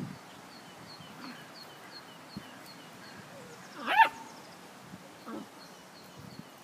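A dog gives one short, sharp yelp about four seconds in as two dogs wrestle in play, with a smaller cry a second later. A faint bird chirps a quick repeated note throughout.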